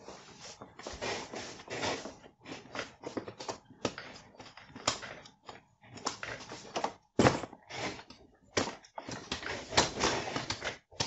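Antares UFO swivel office chair being rocked and shifted in by a seated person: irregular soft clicks, knocks and rustles from the chair and clothing, with no squeak from the backrest now that it is packed with padding material.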